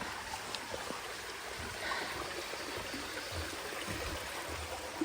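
Steady rush of running water, with a few faint scuffs.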